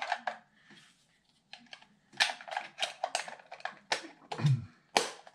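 Irregular sharp plastic clicks and knocks as the battery compartment of a Skywatcher AZ-GTI telescope mount is worked open and the battery holder pulled out. They start about a second and a half in.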